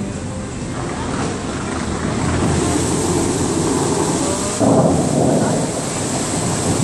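Bellagio fountain water jets firing up out of the lake and spray falling back, a dense rushing hiss like heavy rain that builds as the jets climb, with a sudden louder blast about four and a half seconds in.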